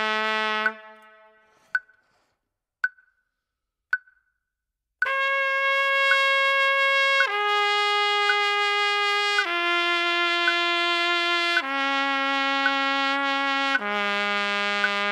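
Trumpet long-tone warm-up. A held note stops and rings away in the room. After a few seconds of silence broken by three short clicks about a second apart, five long connected notes follow, each about two seconds, stepping down in pitch, with faint clicks about once a second underneath.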